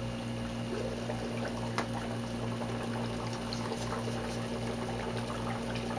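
Air bubbles from a SURF4 upflow algae scrubber bubbling steadily through the algae-filled box with its lid lifted off, over a steady low pump hum. The lid normally keeps the scrubber silent.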